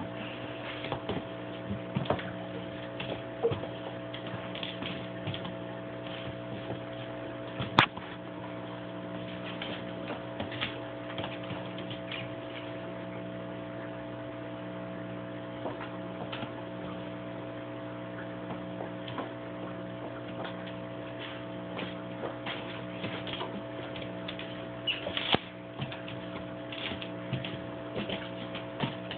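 Steady electrical hum of several held tones, with scattered light clicks of a dog's claws on a tile floor and one sharp, loud click about eight seconds in.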